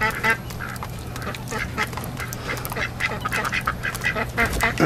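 Ducks quacking over and over, short harsh calls several times a second, over a steady low hum.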